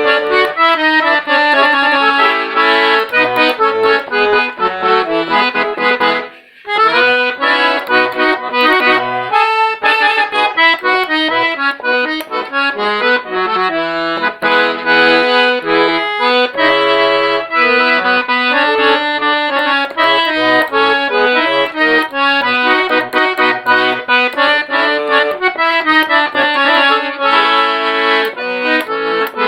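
Accordion (sanfona) playing a tune, melody and chords over low bass notes, with a brief break about six seconds in before the playing resumes.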